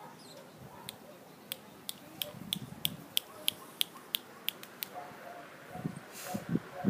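A person making a run of about a dozen sharp clicks, roughly three a second, to get the Labradors' attention. Near the end comes a brief rustle and a few dull thumps.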